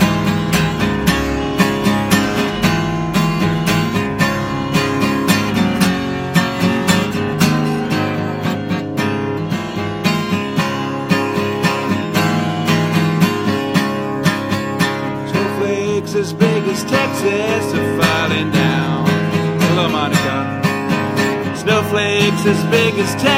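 Acoustic guitar strummed in a steady rhythm, the instrumental introduction to a song.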